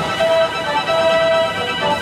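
Music: a melody of held notes over sustained chords.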